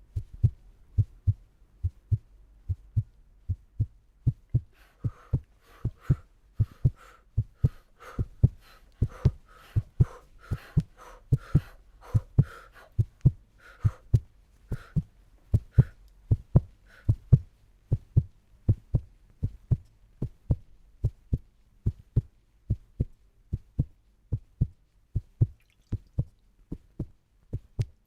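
Foley heartbeat: steady, low, paired lub-dub thumps at roughly one beat a second. A fainter, higher rustling layer rides on the beats from about five seconds in until about seventeen seconds.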